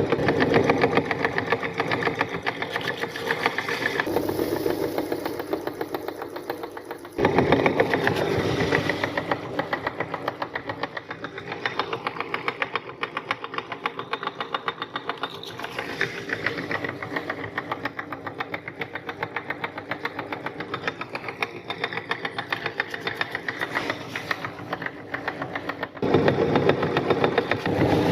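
Meat grinder running, its motor going steadily with a rapid pulsing rattle as it grinds. It steps up louder about seven seconds in and again near the end.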